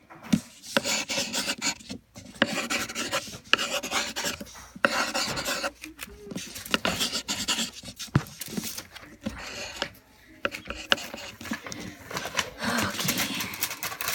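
Pencil or crayon scribbling on paper in repeated scratchy strokes, each about a second long with short pauses between, as a drawing is filled in.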